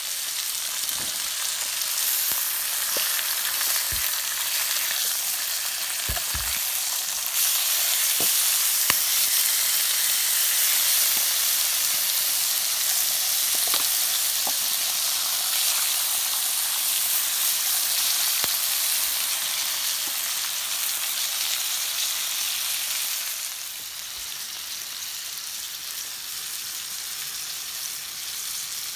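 Steaks sizzling in a hot black steel pan, a steady hiss with a few sharp clicks of a utensil against the pan. The sizzle drops noticeably quieter about three-quarters of the way through.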